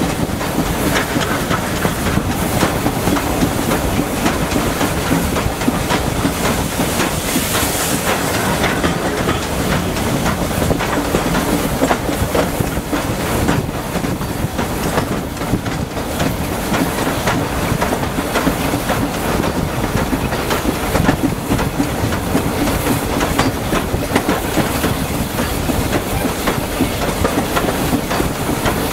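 Steam-hauled railway carriage running along the line: a steady rumble of wheels on rail with clicks over the rail joints, heard at an open carriage window.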